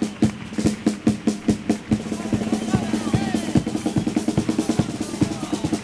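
Carnival chirigota's bass drum and snare drum beating a fast, even rhythm of about four strokes a second, with a held musical note sounding over it.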